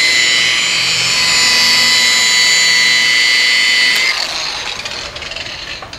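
DeWalt rotary polisher with a wool pad running on car paint, a steady high whine. About four seconds in it is switched off and winds down.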